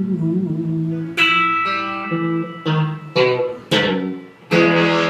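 Electric guitar strumming the closing chords of a song: several chords struck about a second apart, and the last one, near the end, is left ringing.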